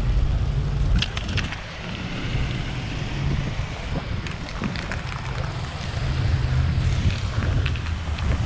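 Wind buffeting the microphone: a steady low rumble under a light hiss, with a few faint clicks and knocks about a second in and again near the middle.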